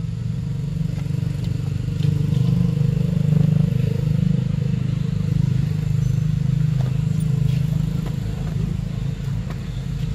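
A steady low engine rumble, swelling slightly a few seconds in, with a few faint ticks over it.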